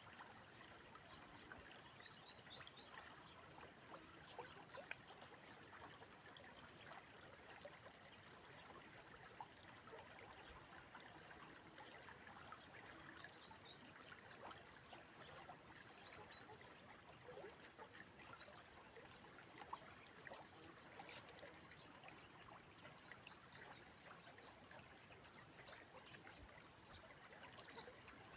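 Faint, steady rush of the Inhul river flowing, with a constant patter of small trickles and splashes.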